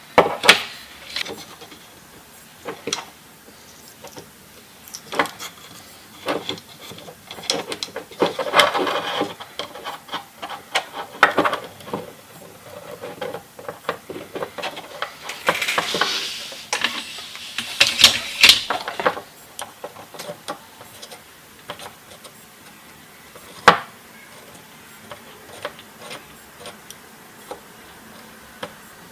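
Irregular clicks, knocks and rubbing of small hard parts being handled and fitted together, with a few stretches of scraping and one sharp knock about two-thirds of the way through.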